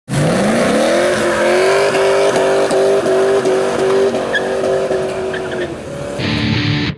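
Chevrolet Camaro doing a burnout: the engine revs up quickly over the first second or so and is held at high revs while the spinning rear tyres squeal.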